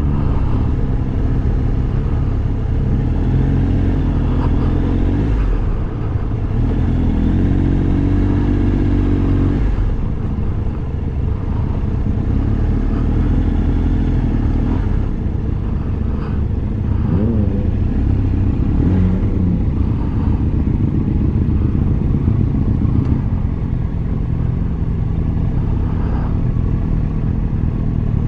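Triumph Tiger Explorer 1200's three-cylinder engine running on the road with a steady low rumble, its note shifting up and down every few seconds.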